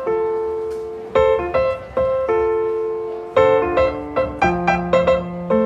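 Solo piano playing a slow melody of single struck notes that ring and fade, quickening into a run of shorter notes in the second half.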